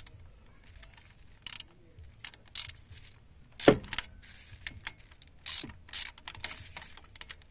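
Socket ratchet wrench clicking in short runs as 12 mm bolts are loosened, with metal tool clinks and one louder knock a little past halfway.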